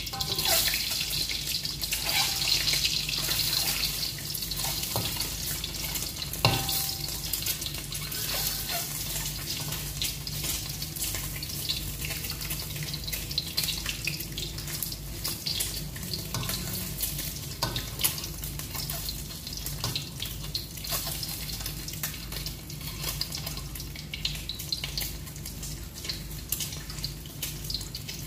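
Eggs frying in hot oil in a steel wok over a gas burner: a steady sizzle, louder in the first few seconds, with a metal spatula now and then knocking and scraping against the wok.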